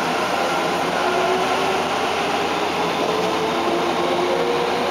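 Kyoto Municipal Subway 10 series car pulling into a station, heard from inside the cabin. The train is slowing to stop, and faint whining tones from its Mitsubishi IGBT-VVVF inverter drive sit over steady running noise.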